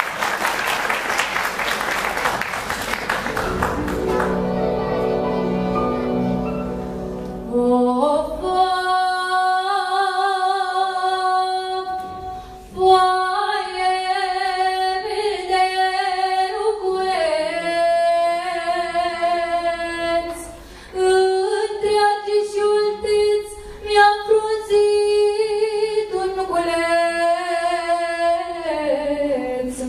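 Applause dies away in the first few seconds. From about eight seconds in, a young woman's solo voice sings a Romanian folk song in long, wavering held notes.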